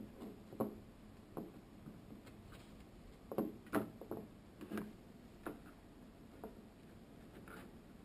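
Baby raccoon knocking plastic toy blocks about on a wooden shelf: irregular light clicks and taps, the loudest a little past the middle.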